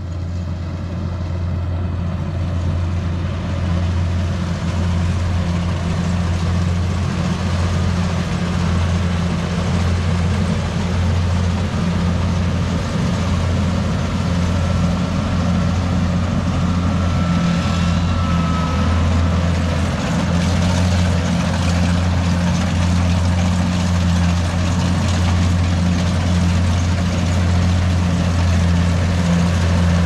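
Mini crawler-track rice combine harvester running steadily as it cuts, a steady low engine and machinery drone that swells over the first couple of seconds as the machine approaches.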